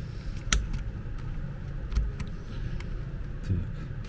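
Hard plastic and metal parts of a Makita DDF485 cordless drill clicking and knocking as its gearbox and chuck assembly is handled and fitted onto the body: one sharp click about half a second in, then a few faint taps.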